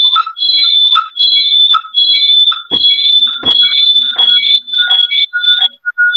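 Audio feedback squeal in an online video call: shrill high tones that pulse on and off about twice a second. A participant thinks it comes from the lecturer being connected from two accounts, so his voice loops back.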